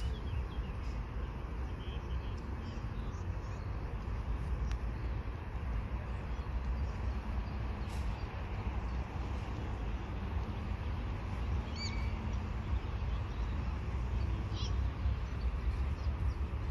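Distant freight train of intermodal trailer and container wagons rolling past, a steady low rumble. A bird chirps briefly a couple of times in the second half.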